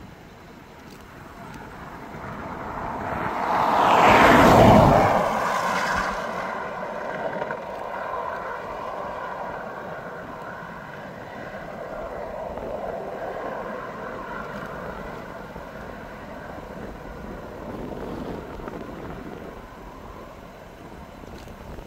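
A road vehicle drives past close by, swelling to its loudest about four to five seconds in and then fading away slowly, over steady wind noise.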